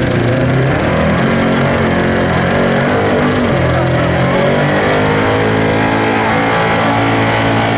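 Gasoline engine of a modified 1960s Ford pickup pulling truck running hard at high revs under load as it drags a weight-transfer sled. Its pitch wavers and dips about halfway, then holds steady.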